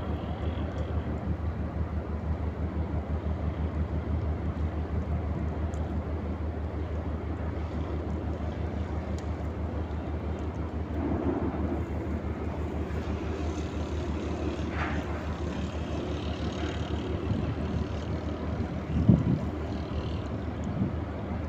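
Ship's diesel engine running with a steady, rapidly pulsing low throb. A single louder thump comes near the end.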